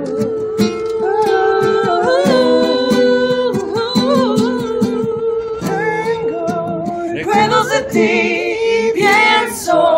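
Acoustic guitar strummed while several people sing a melody together. More voices join in during the last few seconds.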